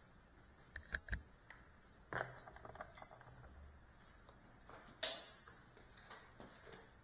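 Knocks and clicks of a small FPV drone being handled, carried and set down on the floor, picked up by its onboard action camera; the sharpest knock comes about five seconds in. The motors are not running.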